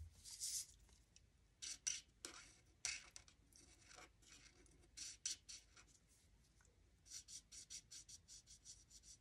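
Stampin' Blends alcohol marker scratching faintly across vellum in short colouring strokes, turning near the end into a quick back-and-forth run of about five strokes a second.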